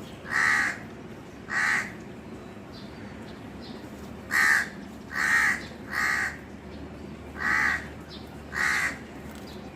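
Crow cawing seven times: two caws, a short pause, three in quick succession, then two more.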